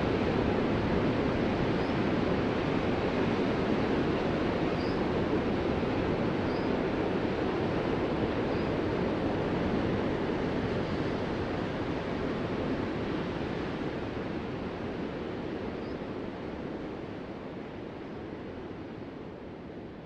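Ocean surf breaking and washing ashore, a steady rushing that fades gradually over the second half.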